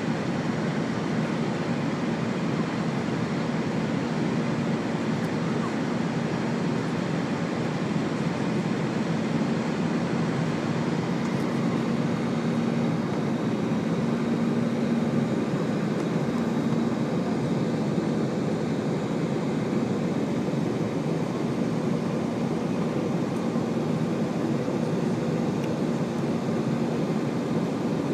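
easyJet Airbus airliner's jet engines running at steady power during the climb after take-off: an even rushing drone with a steady low hum under it.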